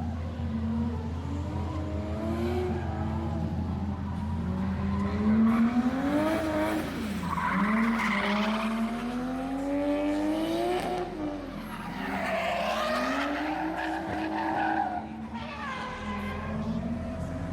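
Drift cars being driven hard: engines revving up and down repeatedly as they go through the corners, with tyres squealing and skidding, the loudest squeals about 8 and 13 seconds in.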